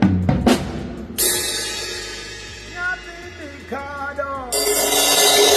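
Drum kit played during a sound check: a few quick drum hits, then a cymbal crash about a second in that rings and fades, and a second cymbal crash near the end.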